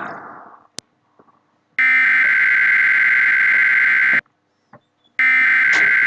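Emergency Alert System SAME header data bursts, the harsh buzzing two-tone digital screech that opens an alert: two identical bursts, each about two and a half seconds long, about a second apart. They encode a rainfall warning generated in EAS encoder software.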